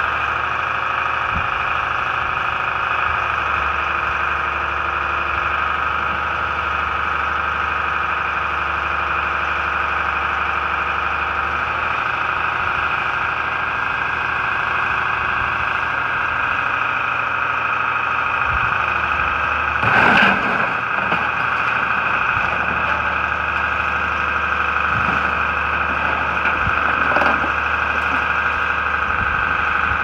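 A Sierra 4200 metal baler and a grapple material handler running steadily, a constant machine whine over a low hum. Two loud metal knocks, about twenty seconds in and again seven seconds later, as the grapple handles scrap.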